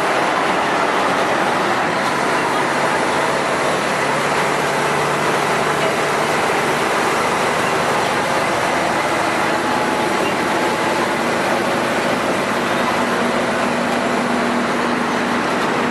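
Scania F113 city bus diesel engine running under way, a steady drone mixed with road noise, its pitch drifting higher in the second half.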